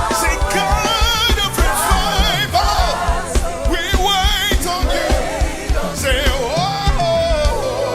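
A live worship band is playing: held keyboard chords and a steady drum beat under a lead voice that sings ornamented runs with strong vibrato, without clear words.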